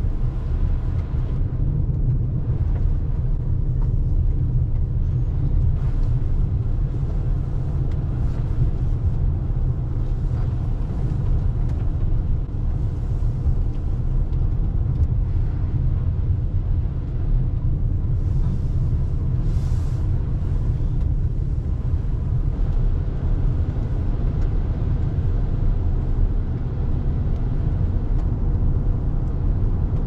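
Steady low road and tyre rumble inside the cabin of a 2021 Toyota RAV4 Hybrid driving on a wet road.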